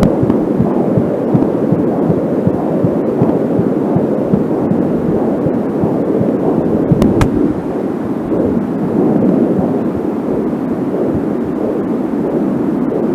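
Angelsound fetal doppler output: the rhythmic whooshing pulse of a heartbeat picked up through the probe at 13 weeks 4 days of pregnancy. A single sharp static crackle about seven seconds in comes from the doppler's short audio cable.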